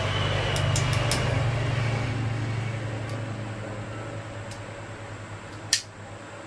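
A low engine hum that swells and then slowly fades away, like a vehicle passing. There are a few light clicks in the first second and one sharp click near the end.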